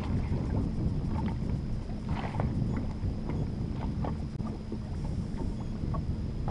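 Wind rumbling on the microphone and water lapping against a small aluminium fishing boat, with a splash of a landing net in the water near the start and a few short knocks and splashes after it.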